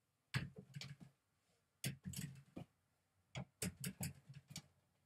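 Mini basketball striking a small wall-mounted hoop's backboard and rim and being caught, in three quick runs of knocks about a second and a half apart.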